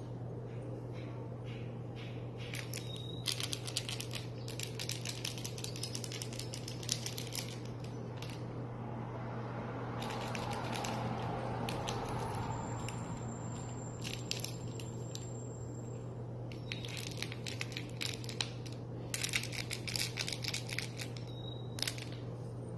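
Bursts of rapid clicking and rustling as a cat bites, clutches and kicks a plush toy, with a steady low hum underneath.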